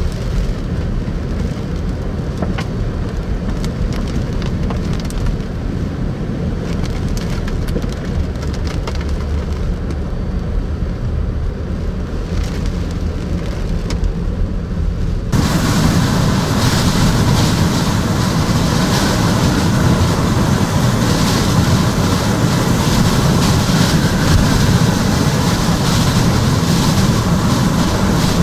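Hurricane wind and heavy rain: a dense, steady rush of noise, low and rumbling at first. About halfway through it switches abruptly to a louder, hissier stretch of wind-driven rain.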